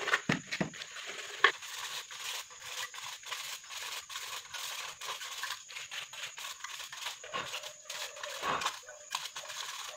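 Sandpaper rubbed in quick, repeated strokes over an aluminium drink can, scratching the paint off the can's surface.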